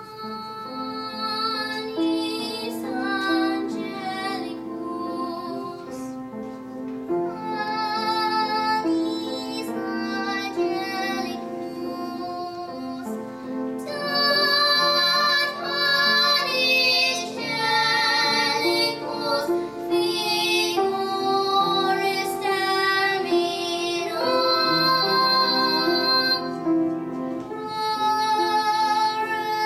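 Two young girls singing a duet to grand piano accompaniment, the voices coming in at the very start over the piano and at times taking turns.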